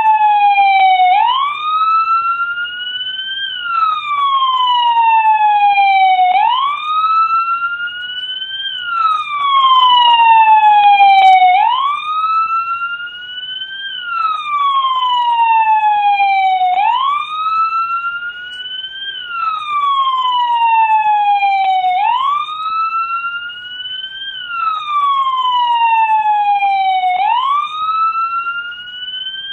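An American police car siren sounding a wail. Its pitch swoops up quickly, then falls slowly, over and over about every five seconds.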